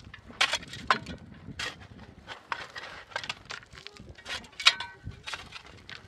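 Metal shovel blade chopping and scraping into dry, stony soil: an irregular run of sharp hits and scrapes, roughly one every half second to second.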